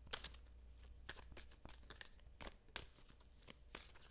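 A deck of oracle cards shuffled by hand: faint, irregular card flicks and taps, several a second.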